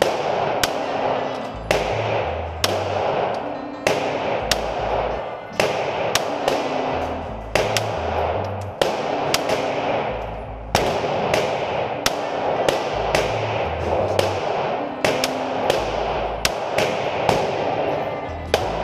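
Glock 17 9mm pistol fired in a long string of single shots at irregular intervals, each shot echoing in an indoor range. Background music with a repeating bass line plays under the shots.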